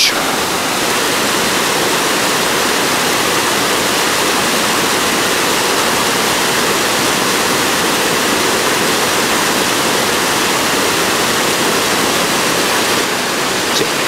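Small waterfalls spilling over rock ledges into a mountain-stream pool: a steady rushing of water.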